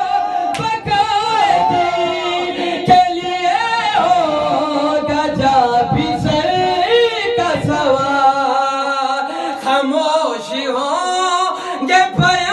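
A man's voice chanting a melodic recitation of verses through a microphone and loudspeaker, long notes bending and wavering in pitch with hardly a break, in the sung style of a zakir's recitation. A single sharp knock stands out about three seconds in.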